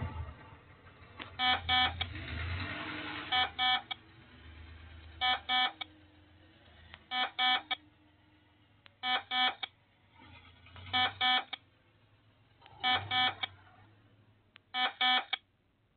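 Electronic beeping: a quick double beep repeating evenly about every two seconds, eight times. Under it, the low hum of a car engine as the sedan pulls away, strongest in the first few seconds.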